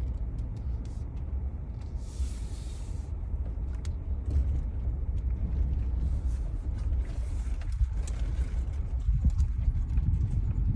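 A car's engine and tyre noise heard from inside the cabin while driving slowly: a steady low rumble, with a brief hiss about two seconds in and scattered faint ticks.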